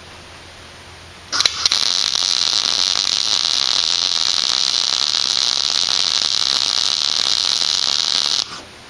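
MIG welder arc running in one continuous bead, a steady hiss and crackle that starts with a brief sputter a little over a second in and stops sharply after about seven seconds, while the slits in a steel seat bracket are welded shut.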